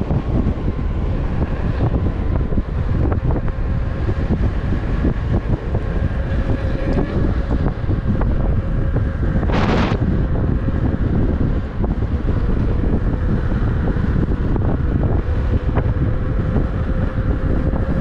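Wind buffeting the microphone while riding an electric unicycle, a steady rumble with a faint steady whine under it. A brief hiss cuts through about halfway.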